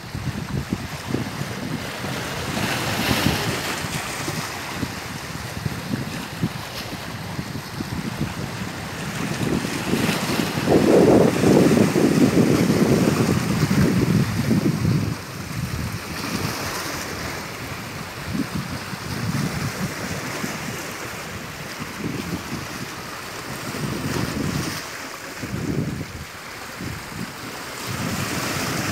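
Sea waves breaking and washing in, with gusts of wind on the microphone. One wave swells loudest about ten seconds in and dies away after a few seconds.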